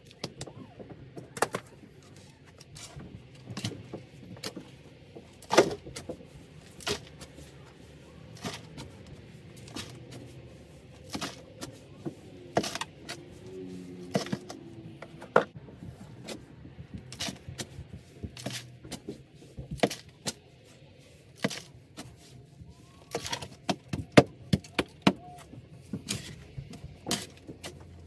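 A wooden-handled digging tool chopping into a dirt floor by hand, with sharp strikes at an irregular pace of about one a second.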